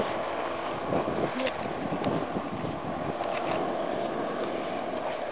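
Wind buffeting the microphone, with the rustle and swish of tall grass as people and a dog walk through it.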